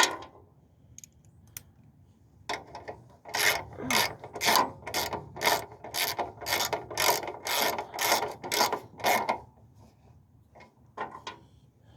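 A rapid run of mechanical ratcheting clicks, about two or three a second, lasting about seven seconds. A single sharp click comes at the start, and a few more clicks come near the end.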